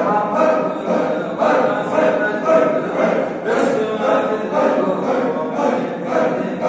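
A small group of men chanting zikir (Sufi dhikr) together in a steady, even rhythm, about two forceful, breathy chanted pulses a second.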